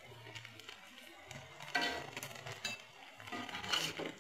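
Vegetable fritters deep-frying in hot oil in a steel wok, the oil sizzling steadily. A metal spatula scrapes and clinks against the wok in two louder spells, about halfway through and near the end.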